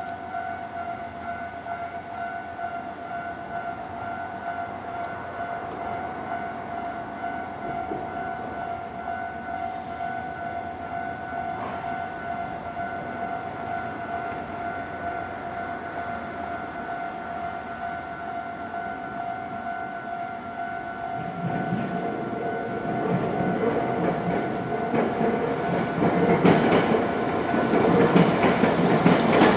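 Japanese railway level-crossing warning bell ringing steadily. From about 21 seconds in, a train approaches and grows louder, with wheels clacking over the rail joints near the end.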